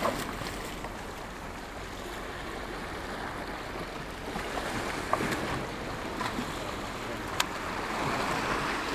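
Surf washing against jetty rocks, a steady rushing noise, with a few sharp clicks about five seconds and seven seconds in.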